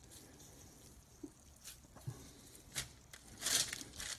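Hands patting and pressing raw ground beef into a patty, soft wet taps, then a louder crinkle of wax paper about three and a half seconds in as the patty is laid down on it.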